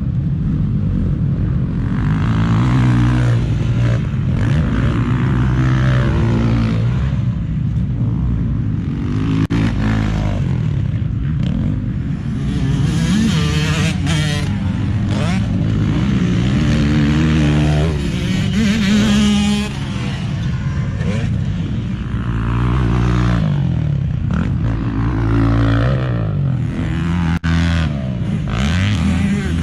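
Several motocross dirt bikes running on the track, engines revving hard and dropping back over and over, the pitches rising and falling and overlapping as riders accelerate, shift and ease off.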